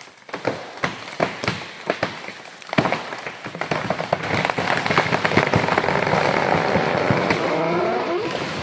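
A giant ironwood tree's trunk cracking as it starts to fall: a run of sharp snaps and splintering. About three seconds in they give way to a loud, continuous rushing crash as the tree goes over and its crown comes down through the branches around it.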